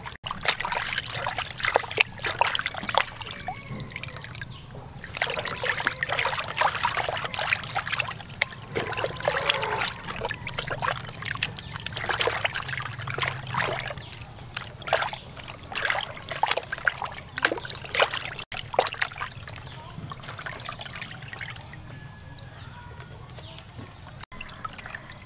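Hands washing a large piece of raw beef in a plastic basin of water: irregular splashing, sloshing and trickling, thinning out over the last several seconds.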